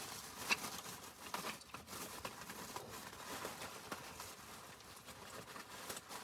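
Footsteps crunching in snow, an irregular run of crisp crunches and crinkles, with a sharp click about half a second in.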